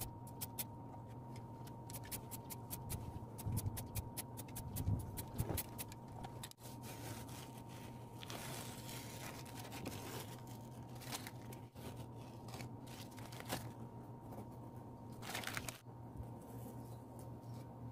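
Hand work on a masking-tape stencil: a rapid run of clicks over the first few seconds, then masking tape peeled off the wall in short tearing rasps, and a snap-off craft knife trimming the tape near the end, over a faint steady hum.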